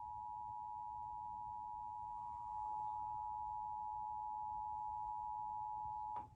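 Emergency Alert System attention signal: the two-tone alert of 853 and 960 Hz sounding together, steady and unbroken, then cutting off suddenly about six seconds in. It is the signal that announces an emergency alert broadcast.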